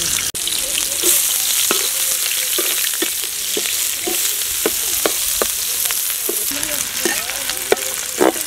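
Chopped onions and cumin seeds sizzling in hot oil in a wide aluminium pan, with a steady hiss. A metal slotted spoon stirs them, scraping and clinking against the pan every half second or so.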